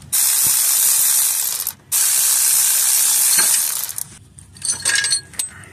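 Air ratchet running in two loud runs of about two seconds each with a steady hiss, spinning out the 14 mm bolts of the engine mount bracket. It is followed by a few light metallic clicks near the end.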